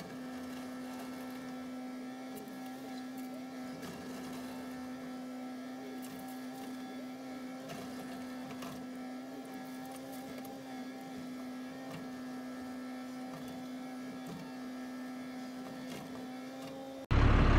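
A steady, unchanging mechanical hum from a small motor: one constant low tone with fainter higher tones above it. It stops abruptly near the end.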